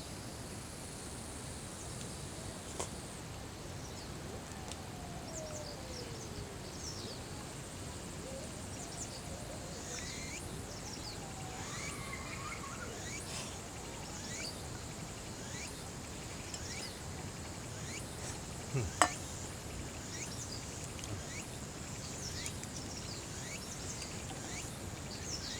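Outdoor ambience: many short, falling birdcalls over a steady high insect drone, with one sharp click about 19 seconds in.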